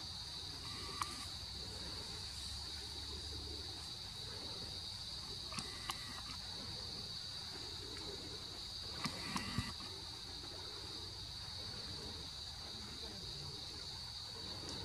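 Insects droning steadily in one high pitch, with a few brief sharp clicks about a second in, around six seconds, and in a short cluster around nine to ten seconds.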